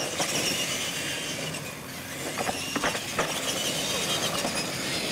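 Two radio-controlled monster trucks racing down a concrete lane, their motors and gears whining and rising and falling in pitch, with a few sharp clicks about halfway through.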